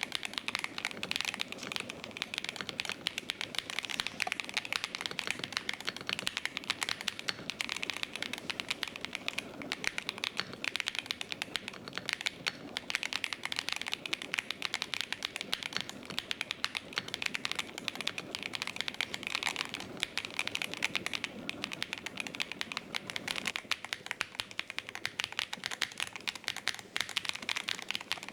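A mechanical keyboard fitted with Gateron Smoothie-series linear switches being typed on without a break: a dense, continuous clatter of keystrokes.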